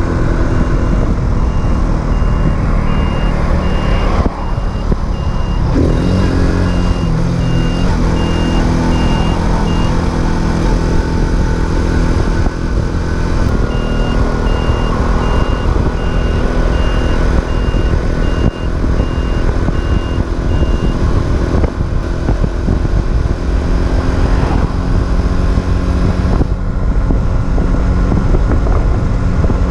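Racer Alpha RC50 moped's small single-cylinder four-stroke engine running under way, with wind rushing past, its pitch shifting a couple of times. Over it, a regular high electronic beep sounds about one and a half times a second, in two spells of several seconds each.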